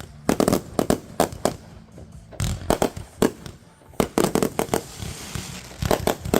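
Backyard fireworks going off in a rapid series of sharp bangs and cracks, bunched in clusters with short lulls between them.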